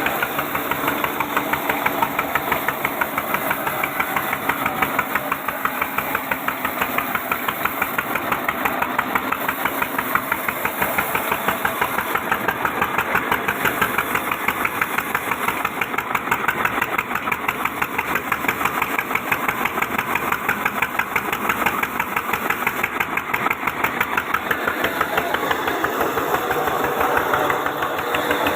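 Sawmill machinery running steadily with a fast, even knocking beat, like a machine running at a constant speed.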